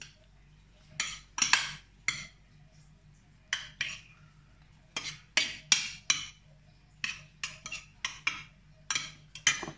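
A metal spoon stirring cooked bulgur, quinoa and shrimp in a glass baking dish: about twenty short clinks and scrapes of metal on glass, coming irregularly in small clusters.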